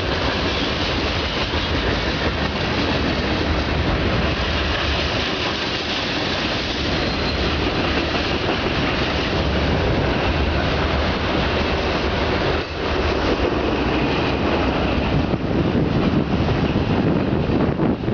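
Cars of a mixed freight train rolling steadily past, a continuous noise of wheels running on the rails.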